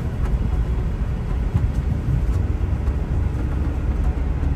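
Car driving slowly, a steady low rumble of engine and tyre noise with a few faint ticks.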